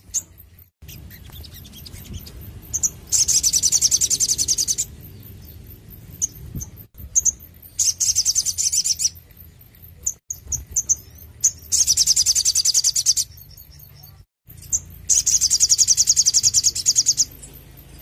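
Caged male sunbird (sogon) singing: four loud runs of rapid, high repeated notes, each lasting one to two seconds, with short single chirps between them.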